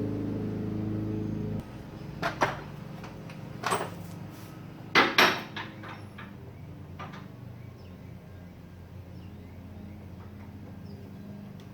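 A steady hum cuts off suddenly about one and a half seconds in. Then come a handful of sharp clanks and knocks from hand tools such as wrenches being handled, the loudest pair about five seconds in.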